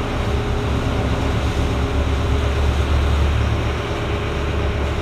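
A sportfishing boat's engine running steadily underway, a constant low drone with the rush of wind and churning wake over it.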